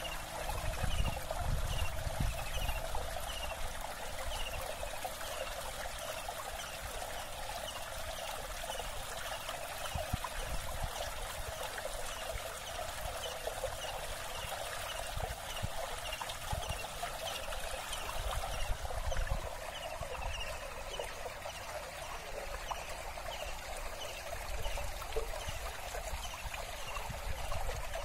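Steady outdoor hiss with a short falling chirp repeated about twice a second, and wind rumbling on the microphone.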